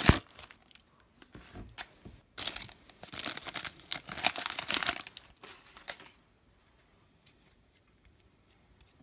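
A plastic foil trading-card pack wrapper being torn open and crinkled, in a brief burst at the start and a longer crackling stretch from about two and a half to five seconds in. It then falls to near silence with a few faint clicks.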